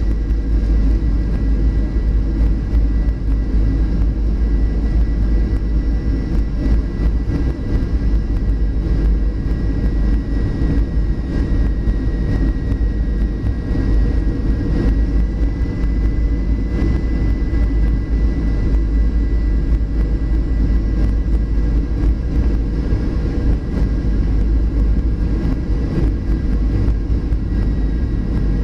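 Steady cabin noise inside a Boeing 737 airliner on final approach: a deep rush of engines and airflow with a thin high whine on top that rises slightly about halfway through.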